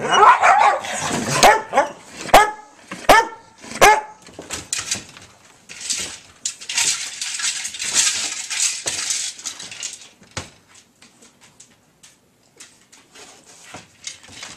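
Dog barking and snarling aggressively at another dog, about five sharp barks over the first four seconds. A rattling stretch follows, typical of a wire dog crate shaken as the dog moves inside it, trailing off into faint clicks.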